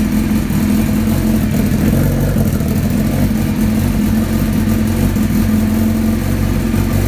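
Suzuki Hayabusa motorcycle engine idling steadily and loudly through an M4 aftermarket muffler mounted without its mid pipe, held on by a spring, with a gap at the joint that leaks a little exhaust.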